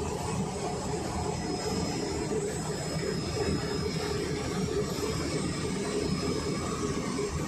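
Jet airliner engines running: a steady rumble with a thin, steady high whine above it.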